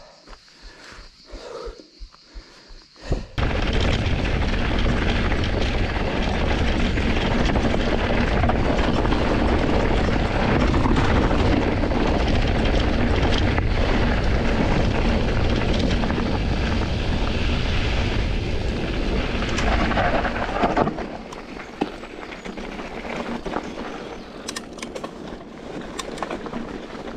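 Wind buffeting on the microphone of a camera carried on a moving mountain bike: a loud, even rush that starts suddenly a few seconds in and eases off to a lower level about three quarters of the way through, with a few sharp clicks near the end.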